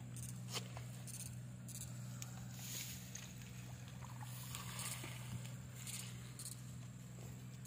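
Electric-fishing inverter giving a steady low electrical hum while the shocking rod is in the water, with scattered short, high crackles and rustles over it.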